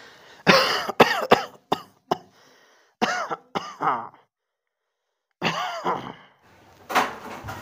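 An old man coughing and clearing his throat in several short fits, with a pause of about a second in the middle.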